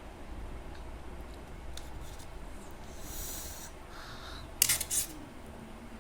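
Close-up eating sounds: soft mouth clicks and chewing, with a short, loud crunchy crackle a little past the middle.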